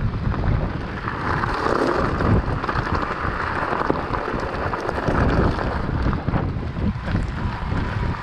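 Wind buffeting the camera microphone over a mountain bike's tyres crunching on a loose gravel track, with a constant patter of small stones and bike rattle.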